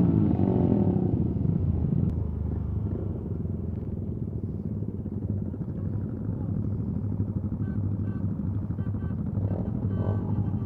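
Motorcycle engines running at idle with a steady low hum; one engine's note falls in pitch as it settles at the very start.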